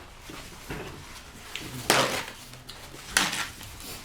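Eating and handling noises at a meal of deep-fried crispy pork leg: soft low rustling, then two short sharp crunches, the louder one about two seconds in and another about a second later.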